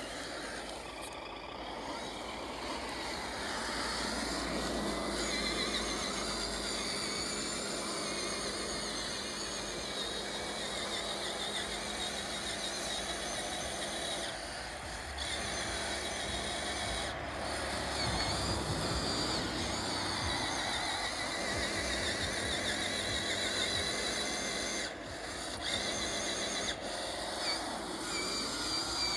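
HG P802 RC truck's electric motor and full-metal geared-down transmission whining as it crawls slowly up a steep wet grass slope, the whine rising and falling in pitch with the throttle.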